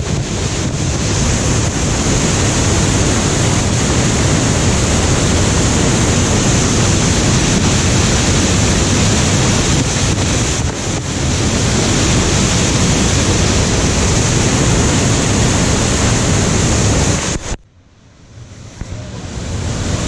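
Waterfall crashing into its plunge pool at close range: a loud, steady rush of falling water. Near the end it cuts off suddenly, then swells back up.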